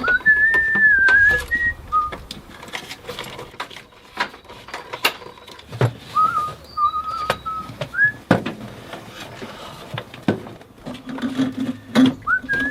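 A person whistling a few short wavering phrases of a tune, with scattered clinks and knocks of tools and parts being handled.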